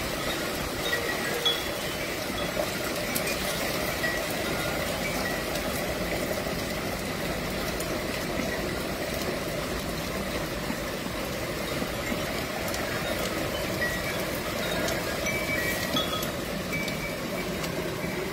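Tubular wind chime ringing irregularly, short scattered notes, over a steady rushing noise of strong storm wind.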